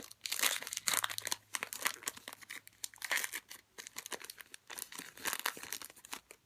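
Crinkling and tearing of a Topps Chrome trading card pack's foil wrapper as it is torn open and crumpled in the hands, an irregular run of rustles.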